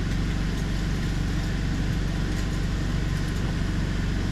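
Steady low mechanical hum with even, low-pitched tones, like an engine idling.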